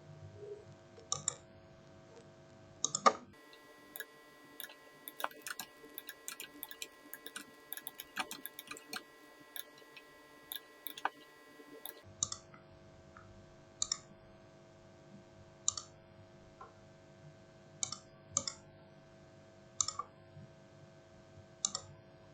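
Irregular sharp clicks, one every second or so, over a faint steady hum. The clicks come more densely for a stretch in the middle.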